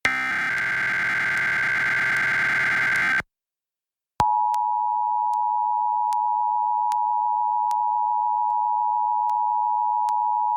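Emergency Alert System test over a TV broadcast: about three seconds of the SAME header's harsh digital data burst, the last of its three repetitions, then a second of silence, then the steady two-tone EAS attention signal (853 and 960 Hz sounding together) for the rest.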